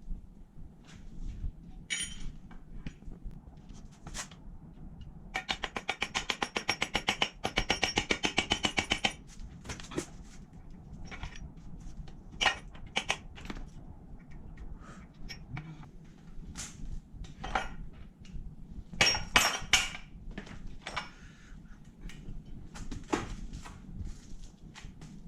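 Metal engine parts and hand tools clinking and knocking as a small two-stroke motorcycle engine is taken apart on the bench. About five seconds in comes a four-second run of rapid, buzzing mechanical rattles, the loudest sound.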